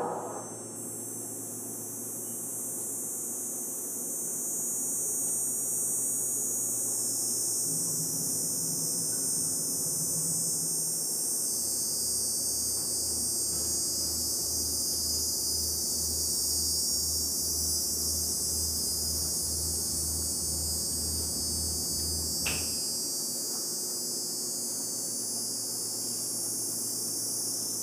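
Quiet passage of live electronic noise music: a steady high hiss with low hum underneath, which a low throbbing pulse of about two beats a second joins for some ten seconds in the middle. A single short sharp chirp sounds just before the pulse stops.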